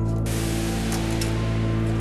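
Background music of steady held tones, with a couple of faint clicks from cables being handled.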